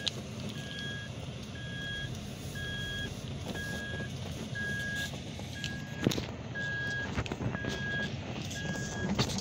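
An electronic warning chime in the cabin of a Toyota 4Runner beeping steadily, about once a second, over the low rumble of the truck moving over rough ground. A sharp knock sounds about six seconds in.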